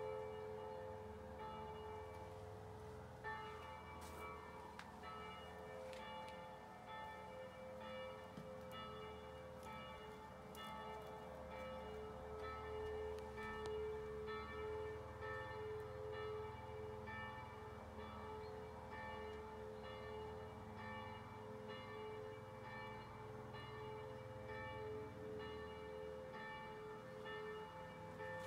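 Bells ringing steadily in a continuous peal, several tones sounding together, with a few faint clicks.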